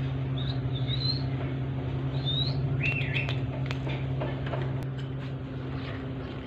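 Alexandrine parakeets giving a few short chirps in the first half, with light clicks. A steady low hum runs underneath.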